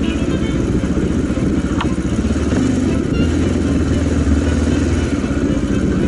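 Mondial RX3i Evo's 250 cc single-cylinder engine running steadily at low revs as the motorcycle rolls slowly.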